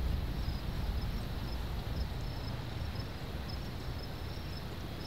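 Outdoor ambience: a low, uneven rumble of wind on the microphone, with faint short high-pitched insect chirps repeating irregularly.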